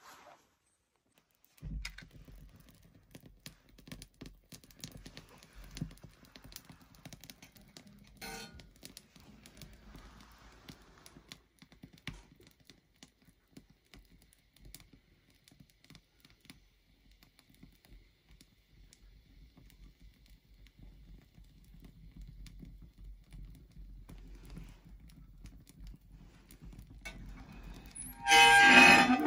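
Firewood crackling and popping as it catches in a banya's wood-burning stove, the iron firebox door open. Near the end comes a loud, ringing metal scrape.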